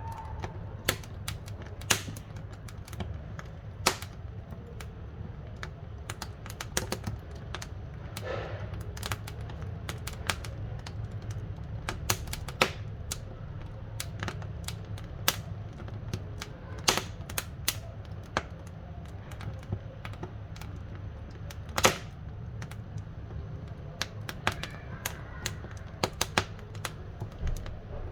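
Wood fire crackling in a wood-burning stove: irregular sharp pops and snaps, a few louder than the rest, over a low steady rumble.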